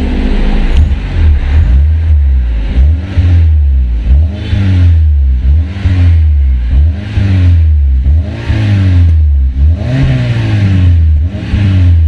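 Honda Civic FD exhaust, fitted with an axle-back system with the resonator deleted and a chambered muffler, revved in repeated quick throttle blips, about one a second. Each blip rises and falls back in pitch over a deep, steady low rumble.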